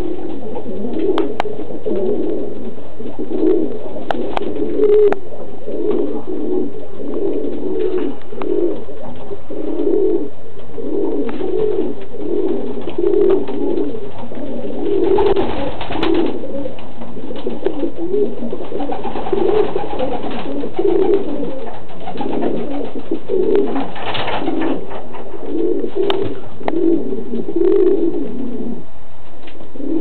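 Domestic pigeons cooing over one another in a loft, a dense, unbroken run of low coos, with a couple of short rustles about halfway and two thirds of the way through.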